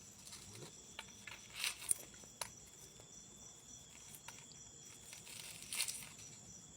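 Faint, steady high chirping of insects, with a few short soft crackles or rustles in between.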